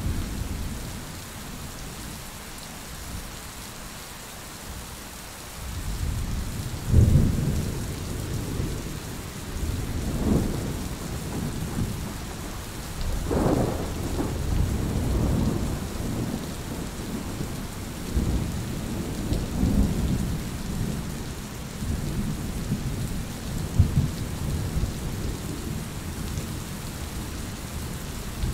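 Steady rain with rolling thunder: after a quieter stretch, low rumbles build about six seconds in and return in repeated swells, with sharper peaks here and there.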